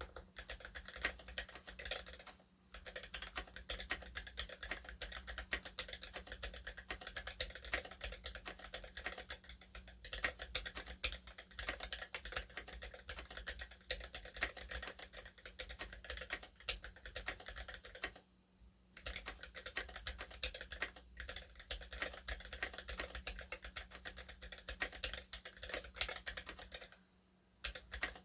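Typing on an HJ75 acrylic-case mechanical keyboard with lubed Gateron Yellow linear switches and lubed stabilizers: a continuous stream of keystrokes, with brief pauses about two, eighteen and twenty-seven seconds in.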